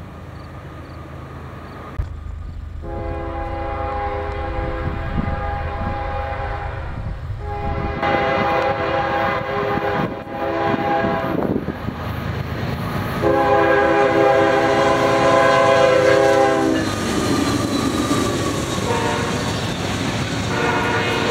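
Norfolk Southern freight locomotive's air horn sounding three long blasts, several notes at once, as the train approaches. Then the double-stack intermodal cars roll past with wheels clacking over the rail joints, and the horn sounds again faintly near the end.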